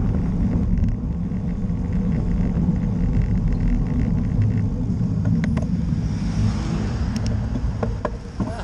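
Wind rushing over the microphone of a bike-mounted action camera while riding, with a steady low rumble of road-bike tyres on tarmac. A few short sharp clicks come in over the second half.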